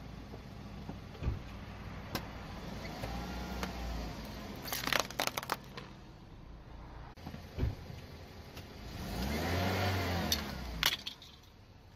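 Car engine running at low speed, its note rising and falling twice as the car creeps forward over objects. A cluster of sharp cracks comes about five seconds in, and two more snaps come near the end as hard plastic items break under the tyre, the last being a pair of sunglasses.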